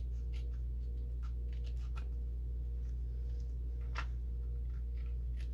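Faint, irregular scrapes and ticks of a file worked along the trimmed edge of a paper card, over a steady low background hum.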